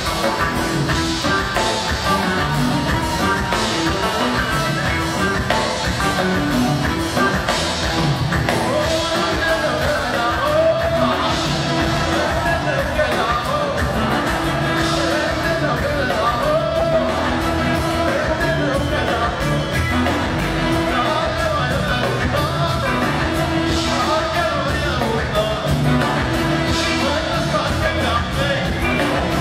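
Live band playing Ethiopian popular music, drum kit and keyboard keeping a steady beat, with a male lead vocal singing over it.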